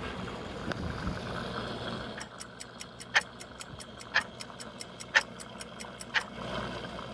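Clock-like ticking: a low steady hiss, then from about two seconds in rapid light ticks, about five a second, with a louder tick once a second, four times.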